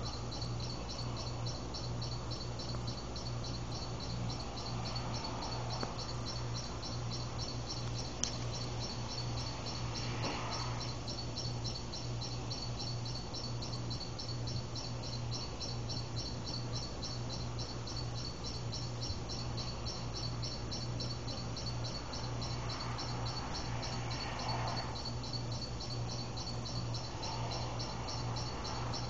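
Insects chirping outdoors in a steady, evenly pulsing high rhythm, over a low steady hum.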